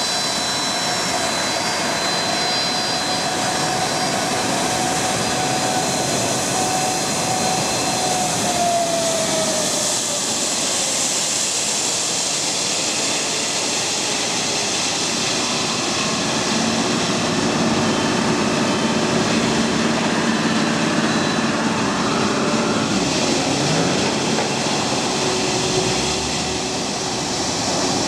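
Boeing 757-200's twin jet engines at taxi power as the airliner rolls slowly past close by, a steady rushing hiss with a high whine. The whine drops in pitch about nine seconds in as the aircraft passes, and the sound grows a little louder in the second half as the aircraft turns its engines toward the listener.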